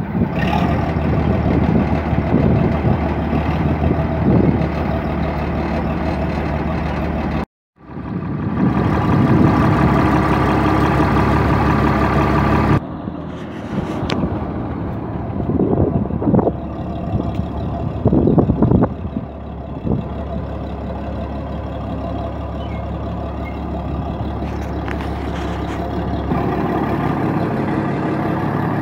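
Bizon Z056 Super combine harvester's six-cylinder diesel engine running steadily, just after its first start of the season, with a few short swells around the middle. The sound cuts out briefly about seven seconds in.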